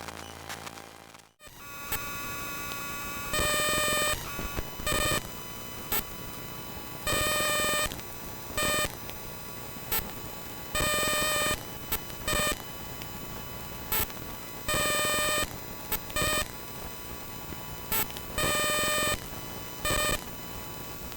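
Electronic interference sound effect: a low hum cuts off about a second and a half in, followed by digital glitch noise, a hissy bed broken by loud buzzing tones about a second long and sharp clicks at uneven intervals.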